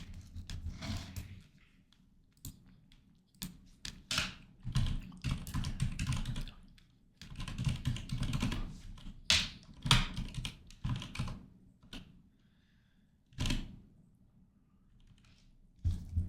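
Computer keyboard typing in irregular bursts of keystrokes, with a few heavier knocks among them.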